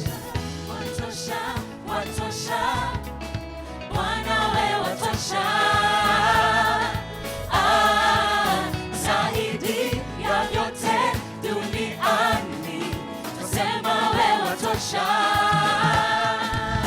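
Gospel worship band performing, with a group of voices singing long, wavering notes over the band's instrumental backing.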